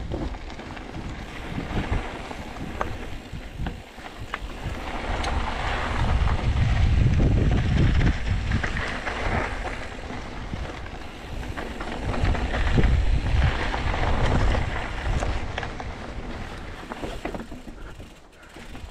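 Wind buffeting the microphone: a low, rumbling rush that rises and falls in gusts, loudest in two long swells and dropping away near the end.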